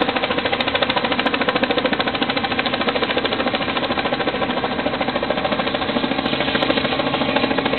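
Helicopter hovering overhead: steady, even rotor chop at about a dozen beats a second, with the turbine's steady tones under it.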